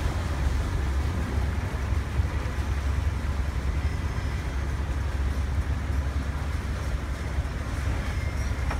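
Low, steady engine drone of a houseboat under way, with a hiss of water and air over it.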